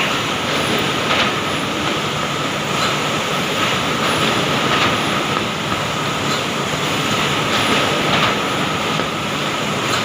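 Woodworking production-line machinery for MDF board sanding and edge cutting running steadily. It makes a dense, even industrial noise with a constant whine and faint knocks every second or so.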